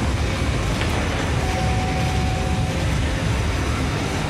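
A steady low rumble with no breaks, with a faint high tone held for about a second midway.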